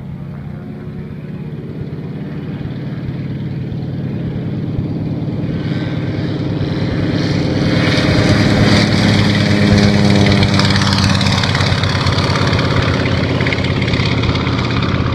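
Antonov An-2 biplane's nine-cylinder radial engine and propeller at full takeoff power. It grows steadily louder as the plane rolls closer, is loudest a little past halfway as it passes, then eases slightly as it lifts off and climbs away.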